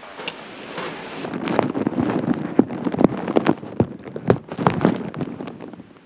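Raindrops starting to patter on a tarp awning overhead: dense, irregular taps that thicken about a second in and thin out near the end.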